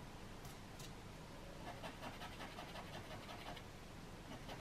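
Palette knife scraping through oil pastel on paper in a run of short, quick strokes, faint and rhythmic. The blade is scratching off the top layer of pastel to cut a pattern into it.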